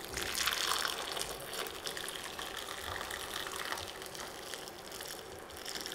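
Hot white-wine syrup poured in a steady stream from a saucepan into a glass bowl over whole poached pears, splashing as the bowl fills.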